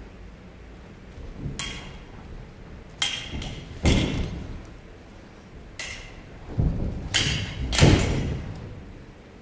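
Fencing épées clashing several times in a bout, sharp metallic clinks, mixed with heavy thuds of the fencers' feet stamping and lunging on the stage. The loudest thuds and clashes come about four seconds in and again near the end.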